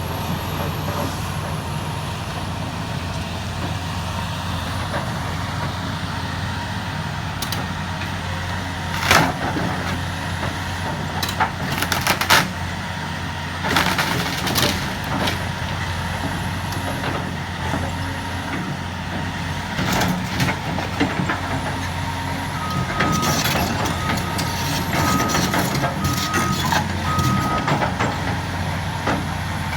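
Diesel engine of heavy demolition machinery running steadily, with crashes and crunches of the building being broken down several times. Near the end, a backup alarm beeps five times.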